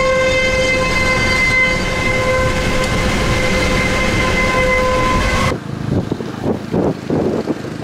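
Outdoor tornado warning siren holding one steady tone, heard from inside a moving vehicle over road noise. It cuts off abruptly about five and a half seconds in, giving way to gusty wind on the microphone.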